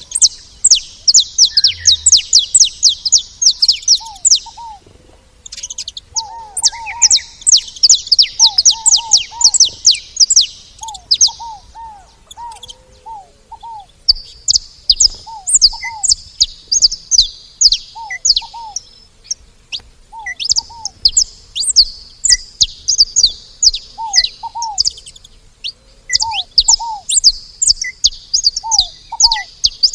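Saffron finches chirping and singing in long, rapid runs of high, sweeping notes. A second, much lower short call repeats in pairs every second or two underneath.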